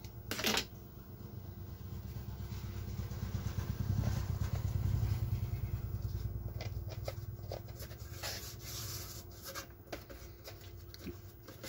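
Hands pressing and rubbing around the freshly glued surround of a 12-inch speaker cone, giving light scattered clicks and scuffs in the second half. A brief sharp sound comes just after the start, and a low rumble swells and fades under it all.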